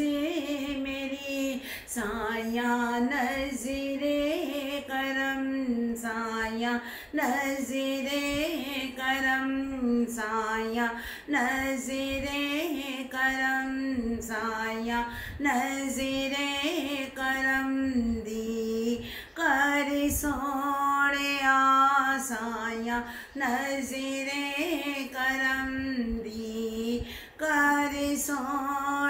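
A woman singing a Punjabi naat solo and unaccompanied, in short phrases with held, wavering notes.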